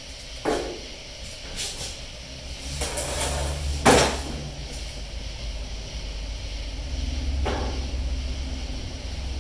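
Handling noises of body-filler work: a few separate knocks and scrapes. The loudest comes about four seconds in, as the plastic mixing board goes down on the concrete floor. A steady low hum runs underneath.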